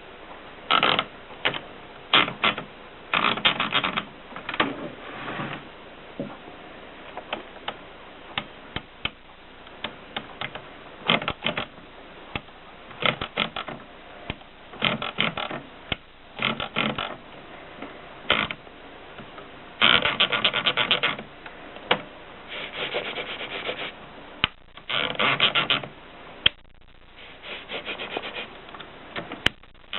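Erika M manual typewriter being typed on: bursts of rapid keystrokes separated by short pauses.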